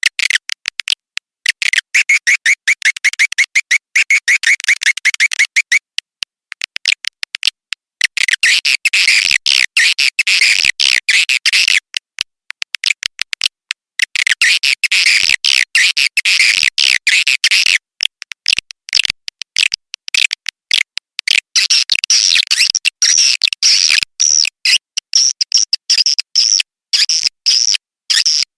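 Swiftlet lure call recording: rapid, rattling high-pitched chirps of edible-nest swiftlets, in long dense stretches broken by brief pauses, played to draw swiftlets into a swiftlet house to roost and nest.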